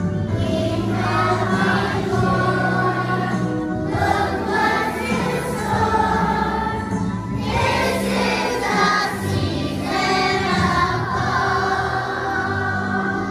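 Large choir of elementary-school children singing together over an instrumental accompaniment, in phrases of a few seconds each.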